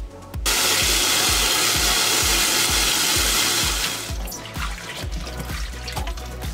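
Water running into a stainless steel bowl of cut garlic scapes in a sink. The steady rush stops about four seconds in, leaving hands swishing and splashing the scapes in the water to rinse them.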